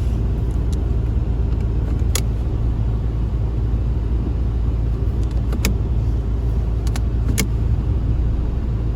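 Steady low rumble of a Mitsubishi L200 pickup with its 2.5-litre diesel, heard from inside the cab. A few sharp clicks come through it, around two, five and a half, and seven seconds in.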